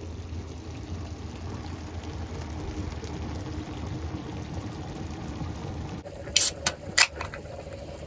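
Pot of food bubbling on a camp stove, a steady simmering sound. About six and a half and seven seconds in come a few sharp clicks.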